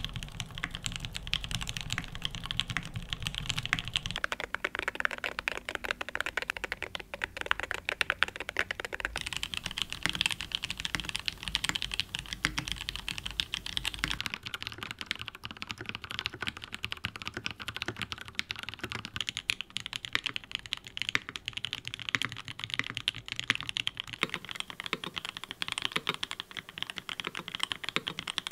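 Fast touch-typing on custom mechanical keyboards with lubed switches: a dense, continuous run of keystroke clacks. The tone of the keystrokes changes a few times as one keyboard gives way to the next.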